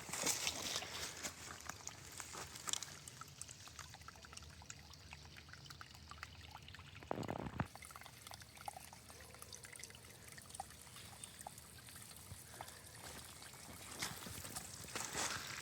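Water trickling faintly, dotted with small scattered ticks, with a short thump about seven seconds in.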